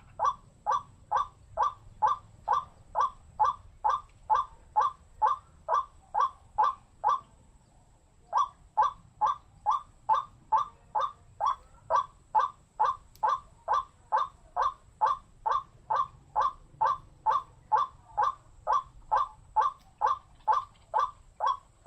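White-breasted waterhen (wak-wak bird) calling in a fast, monotonous series of short notes, about three a second. It breaks off for about a second near a third of the way in, then carries on.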